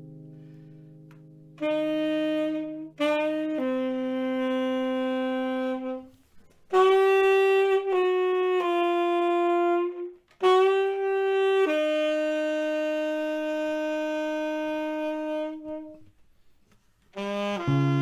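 Music: a saxophone plays slow phrases of long held notes, four phrases with short breaks between them. A guitar chord fades out at the start and guitar strumming comes back in near the end.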